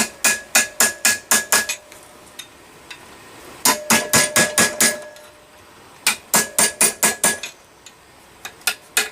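Hammer striking a chisel held against a hot railroad spike clamped in a vise. The blows come in quick runs of about three or four a second, with short pauses between the runs, and each blow leaves a brief metallic ring.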